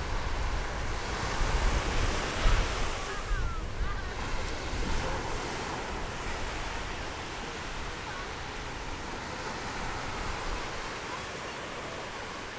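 Small waves washing up onto a sandy beach as steady surf. One wave breaks louder about two seconds in, and the sound then eases off. Wind buffets the microphone with a low rumble in the first few seconds.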